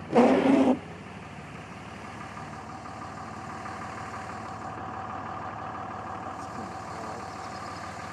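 Car engine idling steadily, heard from inside the car, after a short loud burst of noise in the first second.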